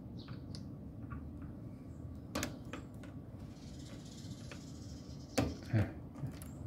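A few short clicks and knocks over steady low background noise: multimeter test probes and their leads knocking against the compressor's terminal wires inside an air-conditioner outdoor unit. The loudest knocks come about two and a half seconds in and again at about five and a half to six seconds.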